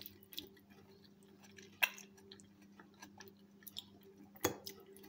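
Metal fork tossing a yogurt-dressed lettuce salad on a ceramic plate: soft wet squishing of the leaves with small clicks of the fork against the plate, and two sharper clinks, about two seconds in and near the end.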